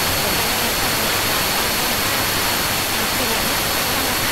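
Loud, steady hiss of recording noise with two thin, high, steady whine tones in it, over faint speech buried underneath.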